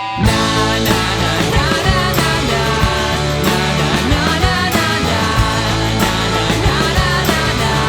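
Guitar-band rock music: drums and electric guitars come in sharply together about a quarter second in, then play on at full volume with a steady beat.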